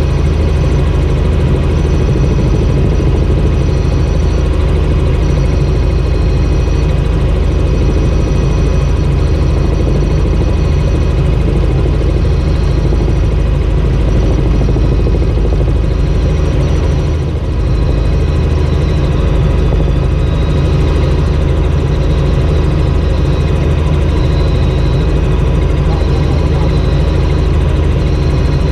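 Light helicopter's engine and rotor running steadily in cruise flight, heard from inside the cabin as a loud, constant drone.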